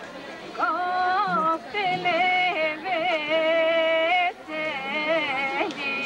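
A woman singing a Bulgarian Pirin folk song solo. She holds long notes decorated with quick turns and a wavering pitch, in phrases broken by short pauses.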